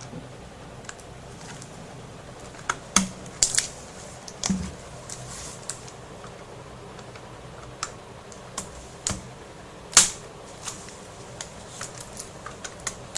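Asus 1015CX netbook keyboard being pried out of its plastic clips with a thin screwdriver: scattered sharp plastic clicks and crackles, a cluster about three to four and a half seconds in and the loudest about ten seconds in. The crackling is the normal sound of the keyboard latches letting go, not breakage.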